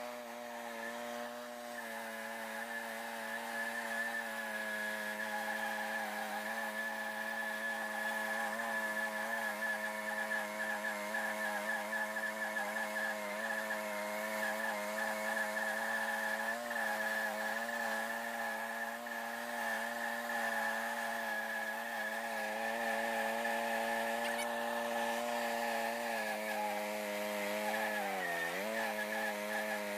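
Wood-Mizer LT10 bandsaw mill's Briggs & Stratton petrol engine running steadily while its band blade cuts through a maple log. Near the end the engine pitch dips briefly, then recovers.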